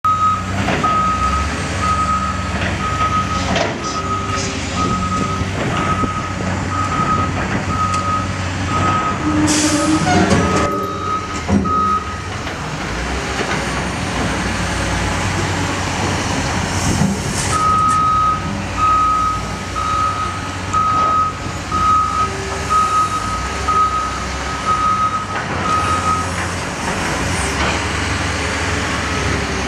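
Cat wheel loader's diesel engine running, with its reversing alarm beeping steadily at one pitch, about one and a half beeps a second, for roughly the first twelve seconds and again from about eighteen to twenty-six seconds. A short loud hiss and clatter about ten seconds in.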